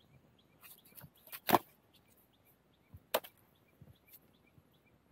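A few short, sharp knocks of freshly cut bamboo shoots being put into a woven bamboo basket and striking each other, the loudest about one and a half seconds in and another about three seconds in.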